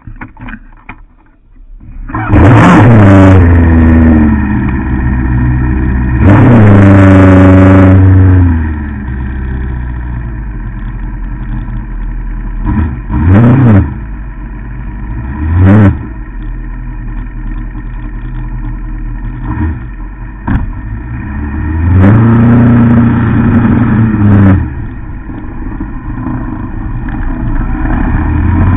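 Motorcycle engine starting close by about two seconds in, then revved hard twice, blipped briefly a couple of times and left idling between, with another rev as the bike moves off.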